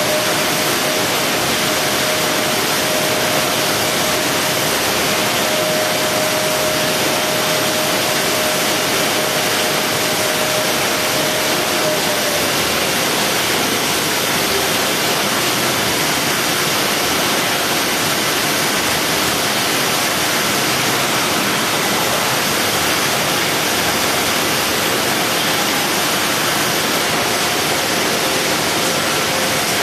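Steady, loud, hiss-like machine noise of a factory floor around a box-palletizing robot line, with a faint steady whine that stops about twelve seconds in.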